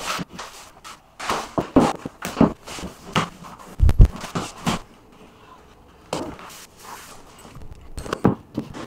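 Vinyl floor planks being handled and set down: a series of short knocks, taps and scuffs, with one heavy thump about four seconds in.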